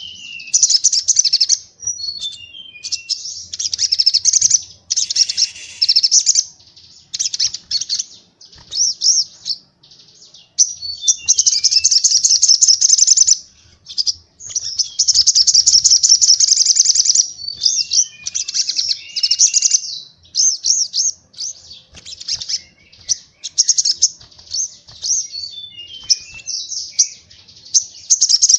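Recorded songbird song of the rapid 'tembakan' burst type used as a training track for white-eyes (pleci): dense high trills in bursts broken by short pauses. A short run of falling notes comes a few times.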